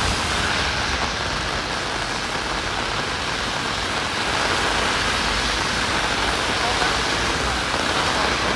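Heavy rain falling and splashing, a steady dense hiss that does not let up.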